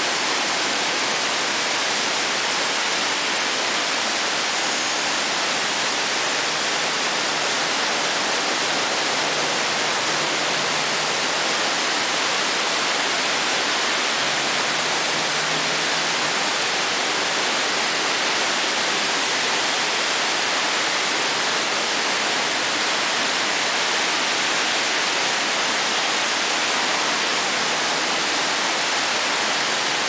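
Rushing rainwater: a rain-swollen, muddy creek running fast and a stream of runoff pouring down from above and splashing, heard as one steady rush of water.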